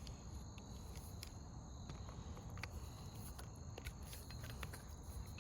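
Faint scattered clicks and taps from pliers and hands working a garden hose fitting apart, over a low steady outdoor rumble.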